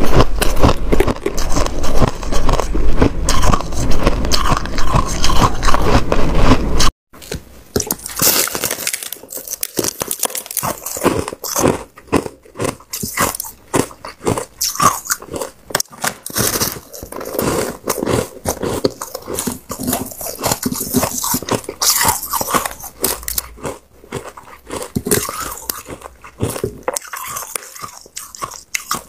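Close crunching of a person biting and chewing a block of compacted shaved ice. For the first several seconds the crunching is dense over a low rumble; after a sudden break about seven seconds in, the bites come sparser and crisper.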